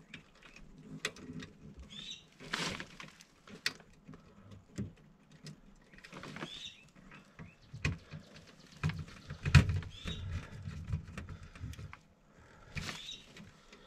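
Small clicks, taps and rustles of wire leads and connectors being handled and pushed onto a furnace control board's terminals, with the sharpest click about ten seconds in.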